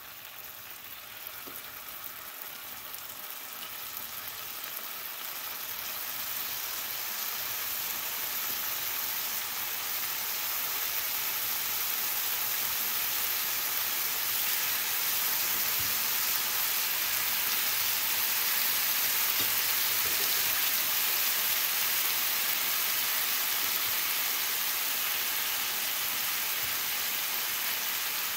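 Marinated chicken pieces sizzling in hot oil in a nonstick grill pan. The sizzle grows louder over the first eight seconds or so as more pieces go into the pan, then holds steady.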